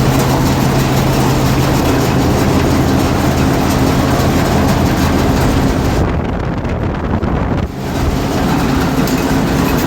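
Maize thresher running under its engine: a loud, steady mechanical din over a low engine hum. Just past halfway the higher, rushing part of the noise drops away for about a second and a half, then comes back.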